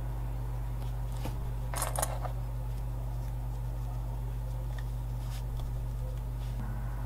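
Small handling sounds of leatherwork at the bench: a brief scrape or snip about two seconds in and a few faint clicks, over a steady low hum.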